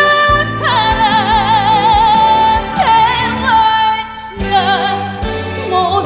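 A female trot vocalist singing long, high held notes with a wide vibrato over a backing band.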